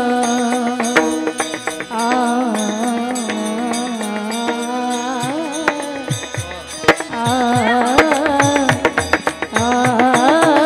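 Warkari devotional singing in raga Bhairavi: a voice holds long, ornamented notes over a steady drone. Hand-drum strokes accompany it, growing busier in the second half.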